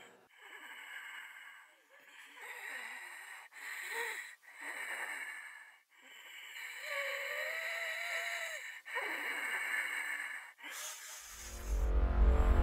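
A woman's laboured, wheezing breathing on supplemental oxygen through a nasal cannula: about six slow, drawn-out breaths, one carrying a thin whistling wheeze that rises and falls. A low rumble of dark music swells in near the end.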